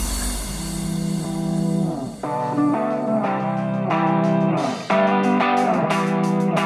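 Background music led by guitar, playing a run of held notes and chords with a light beat.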